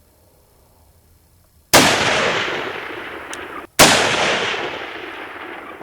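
Two rifle shots about two seconds apart, each followed by a long rolling echo that dies away over a couple of seconds.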